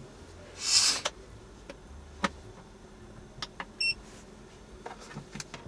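Things being handled on a table: a short plastic rustle about a second in, then scattered light clicks and knocks, with a brief electronic beep a little before the fourth second.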